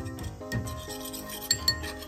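Metal spoon stirring a watery mixture in a ceramic bowl, clinking against the rim and sides, with two sharp clinks near the end, over background music.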